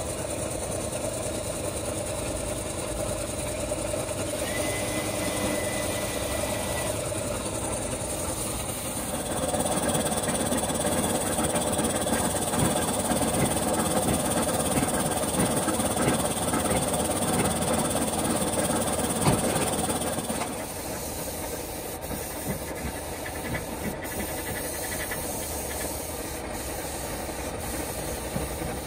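Compressed-air spray gun hissing as it sprays coating onto the inside of a brake-drum casting mould, over the steady running of an air compressor. The hiss grows louder for about ten seconds in the middle, then drops back.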